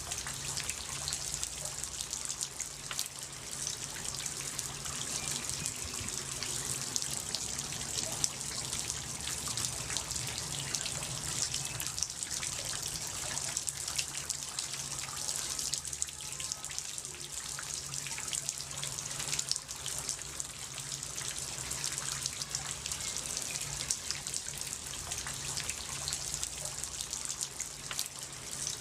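Water trickling and splashing steadily, with many fine drips running through it.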